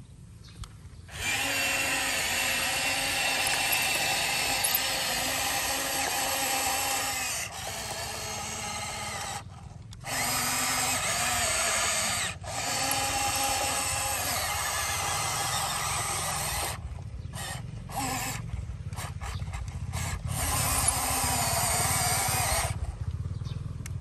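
Huina RC excavator's electric motors and gearboxes whining as it drives on its tracks and works its arm. The sound comes in long runs with a few short pauses, switches on and off in quick succession for a few seconds later on, and stops near the end.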